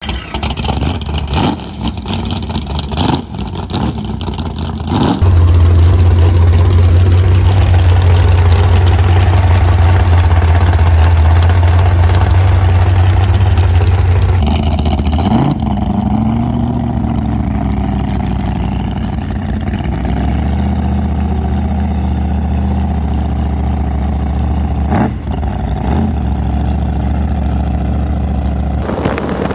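The jet boat's 468 cubic-inch big-block V8 running loud and steady for long stretches, heard across several cut-together clips. It is uneven with sharp clicks for the first few seconds, rises briefly in pitch about fifteen seconds in, then holds steady again.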